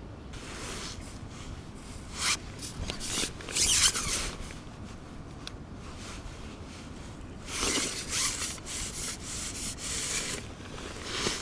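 Rasping, rubbing handling noise as an angler winds in a hooked fish on a feeder rod and reel. It comes in two spells, about two seconds in and again from about seven and a half seconds, with a few short clicks between.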